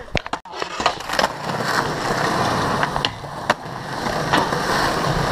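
Skateboard wheels rolling on concrete with a steady rough rumble from about a second in. Several sharp clacks and pops of the board hitting the ground break it up.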